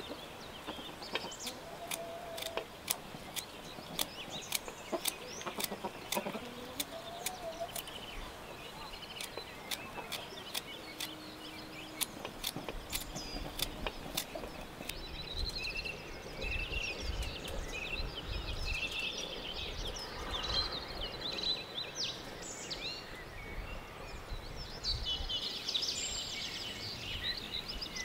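Sharp clicks of a small knife cutting raw potato into thin strips by hand, about one or two a second through the first half. In the second half chickens cluck and birds chirp.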